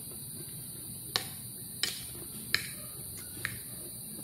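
A metal fork clicking against a plate while picking up cucumber and lettuce salad: four or five short sharp taps, spaced about half a second to a second apart.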